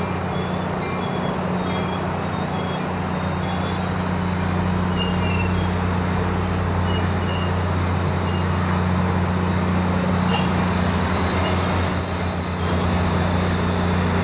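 Coaster commuter train of bilevel passenger cars rolling past, wheels rumbling on the rails over a steady low diesel drone that grows a little louder in the second half. A faint high squeal from the wheels comes in briefly near the end.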